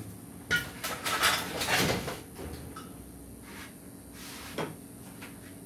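A sharp click, then about a second and a half of rustling and clattering, and a lighter click near the end, over a faint steady hum.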